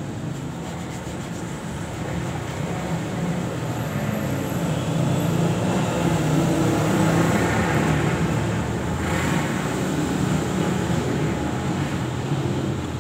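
A motor vehicle's engine runs close by, a steady low rumble that swells to its loudest about halfway through and then eases off. Light water splashing sits over it.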